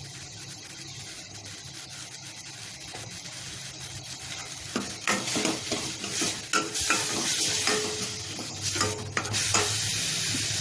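Herbs and spice powders sautéing in oil in a kadai, sizzling, with a spoon stirring and scraping the pan. The stirring strokes start about five seconds in, and a steady sizzle carries on near the end.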